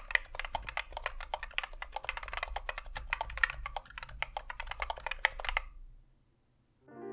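Fast typing on a mechanical keyboard with unlubed NovelKeys Cream+ linear switches fitted with silicone stem inserts, which mute the sound; the rapid keystrokes stop about five and a half seconds in. Soft piano music starts just at the end.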